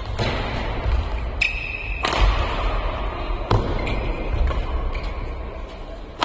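Badminton rally: sharp hits of rackets on the shuttlecock, a few of them a second or so apart, with short squeaks of shoes on the court floor over a steady low rumble of thuds from footwork.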